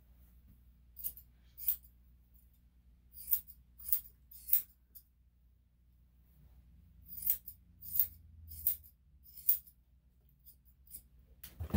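Grooming scissors snipping a small dog's coat: short sharp snips in small groups of two or three, with a louder rustling sound near the end.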